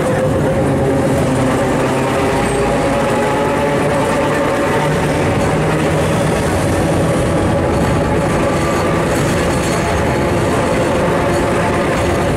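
Historic electric tram in motion, heard from inside the car: the steady rumble and rattle of its wheels on the rails, with a steady whine running through it.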